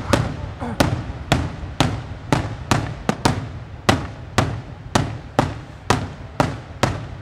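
Daytime aerial fireworks shells bursting overhead in a steady series of sharp bangs, about two a second, each with a brief echoing tail.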